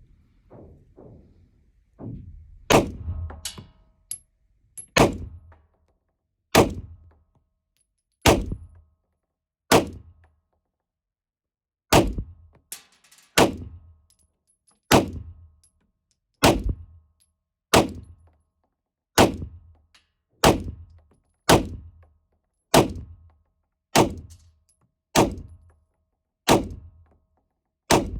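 Glock 19X 9mm pistol firing slow, evenly paced single shots, about one every second and a half, each a sharp crack with a short low boom.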